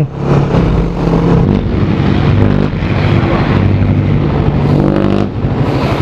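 Suzuki Raider R150 carb's single-cylinder four-stroke engine running as the motorcycle is ridden along the street. Its note shifts in pitch a few times and drops about five seconds in as the bike slows to pull up at the curb.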